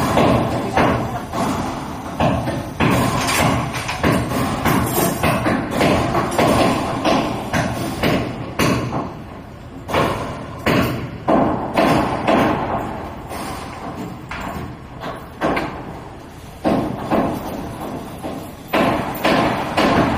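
A run of irregular knocks and thumps, at times several a second, over a steady background hum.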